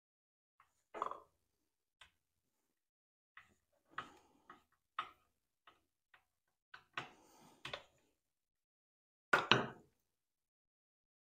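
Scattered small metal clicks and knocks from a hand tool and fingers working the ignition coil mounting bolts on a Ryobi two-stroke trimmer engine, as the bolts are loosened to reset the coil's air gap. The loudest is a quick pair of knocks near the end.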